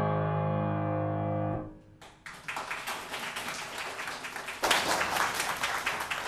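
Final chord of a grand piano ringing and fading, then cut off about a second and a half in. Audience applause follows half a second later and grows louder near the middle.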